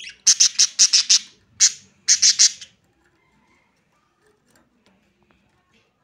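Budgerigars chirping: a quick run of about ten short, sharp, high chirps in the first three seconds.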